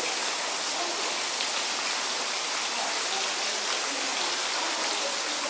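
Small pond fountain, thin jets of water splashing down onto the pond surface in a steady, even patter.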